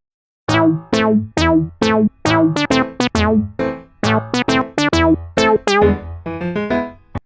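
Background music: an electronic keyboard melody of short, quickly fading notes, several a second, beginning after a brief silence.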